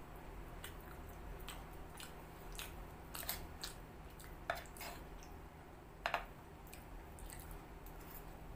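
A person eating egg noodles with a fork from a clay plate: chewing with scattered sharp clicks, the loudest about four and a half and six seconds in, over a steady low hum.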